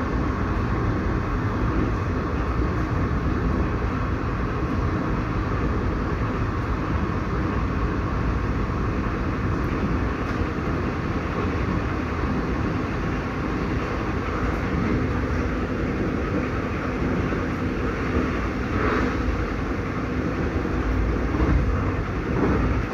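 Passenger train running along the track, heard from inside the carriage: a steady rumble of wheels on rails with a faint steady hum under it.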